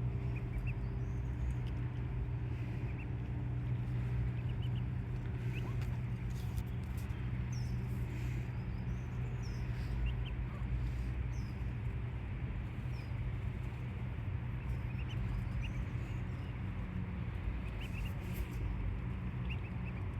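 Ducklings peeping: scattered short, high cheeps over a steady low hum.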